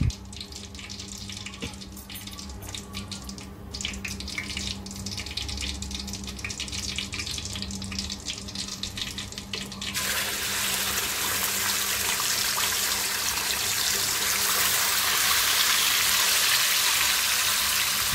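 Hot cooking oil in a pan crackling lightly. About ten seconds in, onion paste is poured into the oil, which breaks into a loud, steady sizzle as the paste starts to fry.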